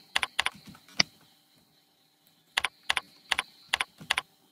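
Computer keyboard being typed on in two short runs of keystrokes: a few sharp taps in the first second, then a quicker run of about six taps from about two and a half seconds in.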